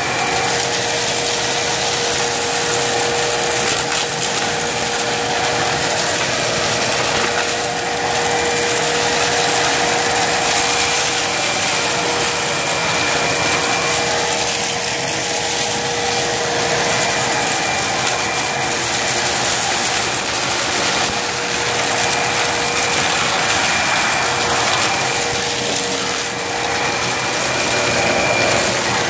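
Bagless vacuum cleaner running steadily, its motor giving a constant whine over the rush of suction, while it picks up a pile of scattered debris.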